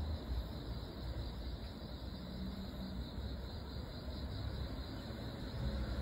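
Steady outdoor background: a low rumble under a faint, steady high-pitched chirring of insects.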